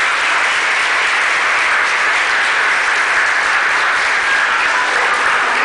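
Audience applauding: steady, dense hand-clapping from a seated crowd.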